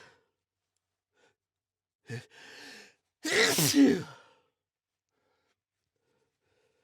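A person sneezing: a short catch and a breathy inhale about two seconds in, then one loud sneeze that falls in pitch. The sneeze is brought on by sniffing chhinkni, a sneeze-inducing herb.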